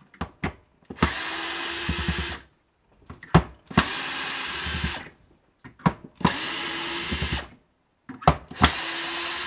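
Cordless screwdriver backing out the screws in a plastic UPS case: four short runs of the motor, each about a second and a half long with a steady whine, and clicks and knocks as the bit is set into each screw between runs.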